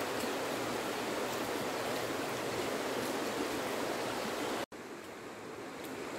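Steady rush of flowing river water. It cuts off abruptly about four and a half seconds in and comes back a little quieter.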